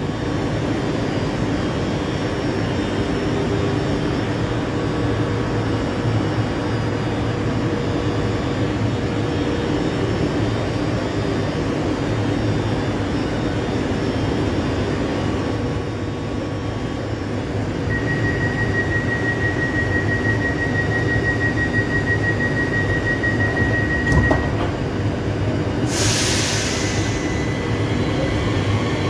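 Z 50000 electric train standing at an underground platform with its equipment humming steadily. About eighteen seconds in, a high rapid beeping warning tone sounds for some six seconds, the door-closing warning, and ends with a thump; then comes a short, loud hiss of released air.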